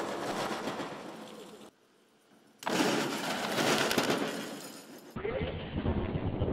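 Cessna 172 airframe slamming into the ground in a crash test: after a moment of near silence, a sudden loud impact with breaking and crunching about two and a half seconds in. From about five seconds, wind rushes over a camera mounted on the aircraft.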